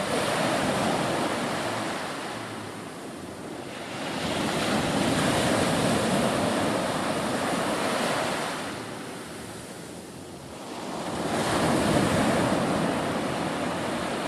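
Small surf breaking and washing up a sandy beach: three waves in turn, each a rush of noise that swells and then fades over a few seconds.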